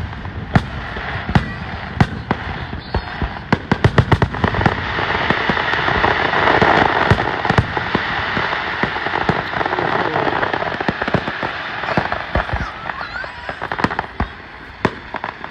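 Fireworks display: shells bursting in rapid volleys of sharp bangs that merge into a dense continuous din in the middle, thinning to scattered bangs near the end.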